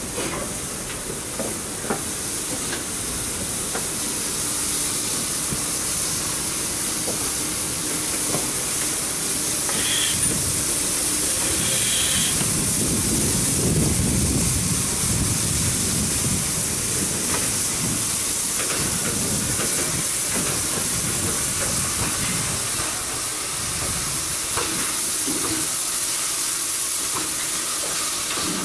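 Steam locomotive letting off steam: a loud, steady high hiss, with a low rumble swelling briefly in the middle.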